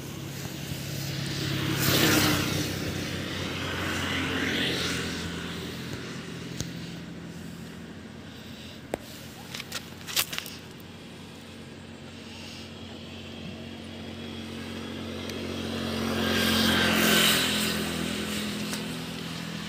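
An engine runs steadily, swelling louder about two seconds in and again near the end, with a few sharp clicks around the middle.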